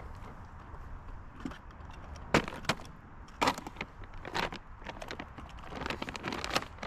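A curbside trash bag being handled and rummaged through: irregular sharp clicks and rustles, thickening into crinkling near the end.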